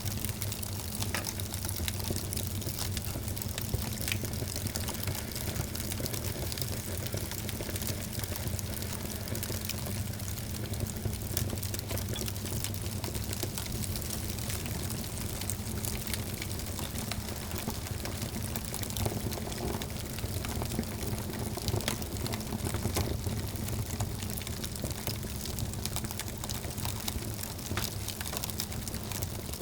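Wood fire burning in a fireplace: a steady low rushing roar with frequent small crackles and pops scattered irregularly throughout.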